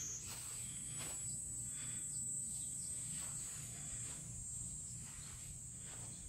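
Faint, steady high-pitched insect chorus, one unbroken drone.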